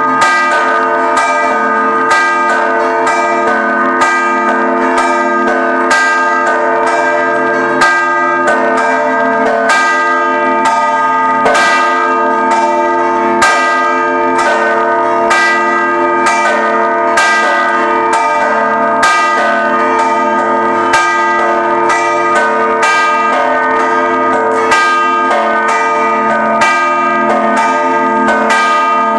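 Maltese church bells of the Żabbar parish church ringing a festive procession peal: several bells struck again and again in quick succession, their tones overlapping and ringing on continuously.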